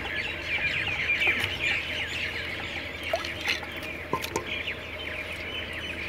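Chickens and chicks calling continuously: a dense chatter of short, high peeps with clucks among them, and a few lower calls about three and four seconds in.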